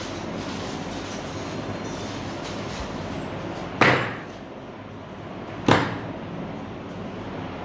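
Two sharp knocks about two seconds apart, each ringing briefly, over a steady background noise.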